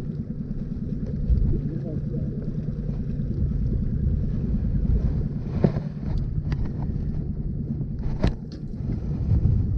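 A boat motor running steadily at trolling pace, with wind on the microphone and a few short knocks about halfway through and near the end.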